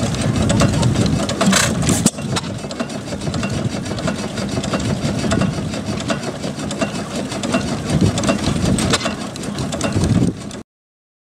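Antique hopper-cooled stationary gas engine with twin spoked flywheels running steadily, with a continuous low mechanical chugging made of repeated short beats. The sound cuts off suddenly near the end.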